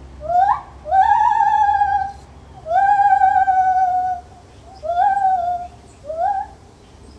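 Lar gibbon calling: five clear hooting notes, each sweeping sharply up and then held with a slight sag in pitch. The second and third are the longest, at about a second and a half each; the last two are shorter.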